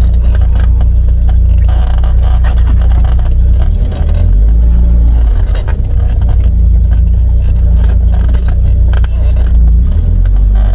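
Volvo B230F four-cylinder engine running at low speed as the car is backed up, heavy at the low end with small shifts in level.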